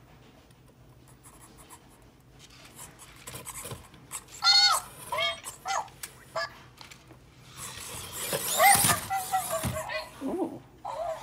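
ClicBot robot giving short electronic chirps: a few quick rising-and-falling chirps from about four seconds in, then a longer string of warbling chirps with a gliding squeal near the end.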